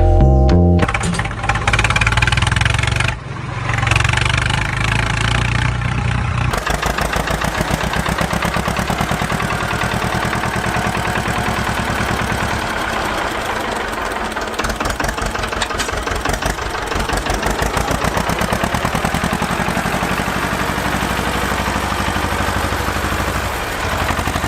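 Diesel engine of a heavy vehicle running with a steady, fast chugging.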